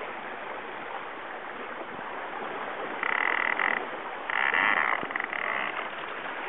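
Steady rush of water and wind on a sailboat under way, with two loud buzzing rattles about three seconds and four and a half seconds in.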